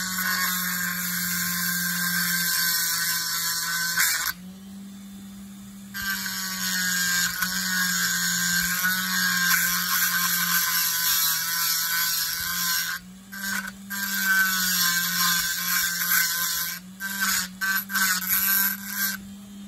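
Dremel rotary tool on a flex shaft running a burr against a nut, grinding it down for clearance: a steady grinding hiss over the motor's hum. The grinding stops for about two seconds a few seconds in, and breaks off in several short stops near the end.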